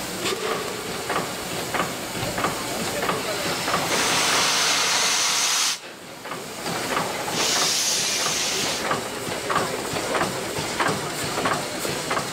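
Steam hissing from a standing class 50 steam locomotive, with two loud bursts of roughly two and one and a half seconds. The first burst cuts off sharply. Under it runs a steady series of faint knocks, two or three a second.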